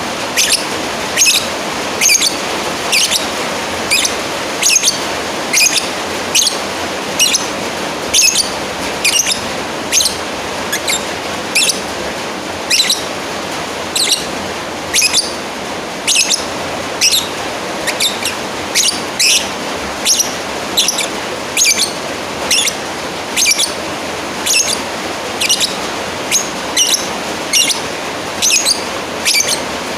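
Lovebird giving short, shrill calls over and over, one or two a second, over a steady background hiss: the calls a lovebird makes to a rival.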